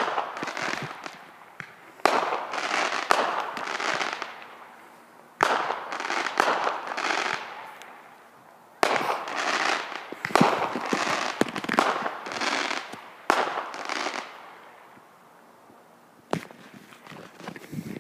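Consumer fireworks going off: about six sharp bangs a few seconds apart, each followed by a second or two of crackling.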